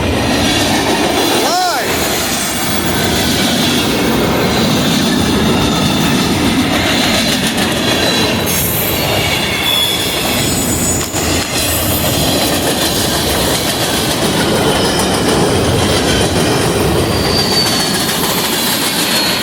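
Freight cars of a CSX mixed manifest train rolling past at about 42 mph: a continuous rumble and clatter of steel wheels on the rails, with thin high wheel squeals coming and going.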